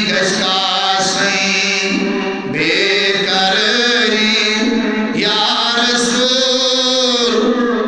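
A man chanting a Kashmiri naat, a devotional poem in praise of the Prophet, holding long wavering notes in long sung phrases, with a short break for breath about two and a half seconds in.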